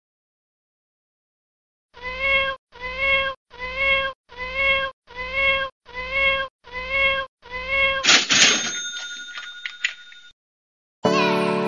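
A recorded cat meow sound effect, the same meow repeated eight times in an even rhythm, about three every two seconds. It is followed by a bright chime that rings out and fades over about two seconds, and piano music comes in near the end.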